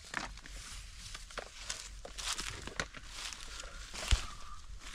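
Footsteps and rustling in dry leaf litter as people move about and handle things, in scattered short scrapes and crackles, with one sharp knock about four seconds in.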